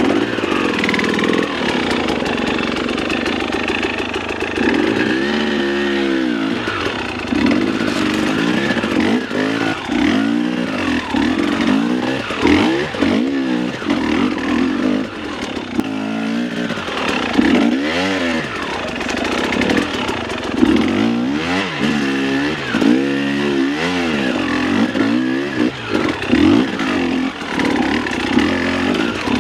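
Dirt bike engine revving up and down in quick surges again and again, the throttle worked hard over a technical trail.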